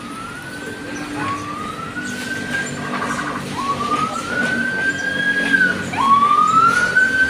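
A siren wailing: a tone that rises slowly and drops quickly, repeating about every two and a half seconds and growing louder about six seconds in.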